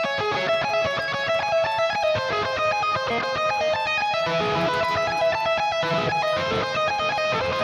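Ibanez electric guitar playing a fast single-note solo passage, a rapid even run of short notes moving up and down in pitch. This is the double-time solo part that the player says he tends to fumble live.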